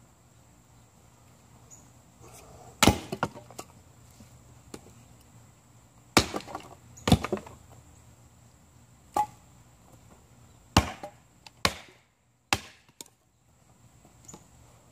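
Snow & Nealley axe chopping kindling on a wooden block: about seven sharp chops at uneven intervals, several followed right away by a short clatter of split sticks.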